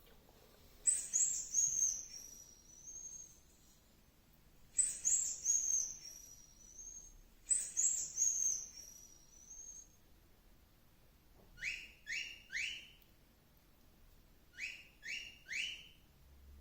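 Bird-like whistles and chirps, likely a played sound effect: a high, wavering whistle call repeated three times at even intervals, then groups of three quick rising chirps.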